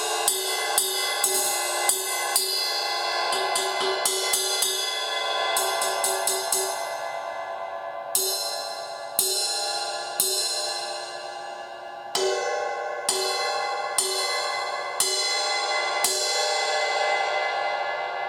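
Zildjian 20-inch crash ride cymbal (1980 g) being struck. A quick run of ride strokes for the first several seconds, then about eight single crashes roughly a second apart, each ringing on in a bright wash; the last is left to ring out.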